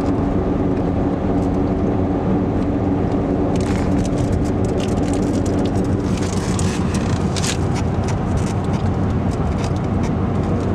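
Steady car road noise heard from inside the cabin while driving on a paved highway: tyre and engine drone with wind rush, and a few brief crackles around the middle.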